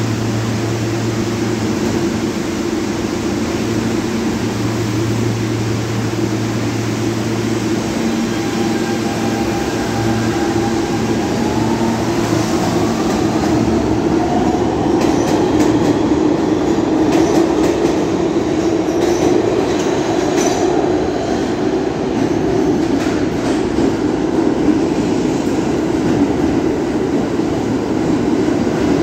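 R160 subway train standing at the platform with a steady hum, then pulling out. Its motors whine, rising in pitch, about eight to twelve seconds in. The wheels then rumble and clatter over the rail joints as the cars roll past.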